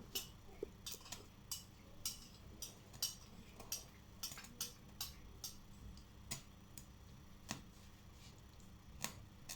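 Irregular light clicks and taps, about two a second, over a faint low hum.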